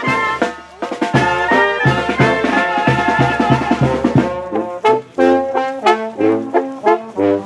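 Brass band playing, trumpets and trombones over a steady bass beat. About halfway through, the music turns to short, separated chords.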